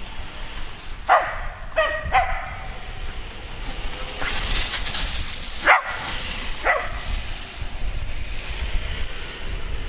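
Dogs barking in short single barks, about five in all and clustered in the first few seconds, with a burst of rustling noise midway.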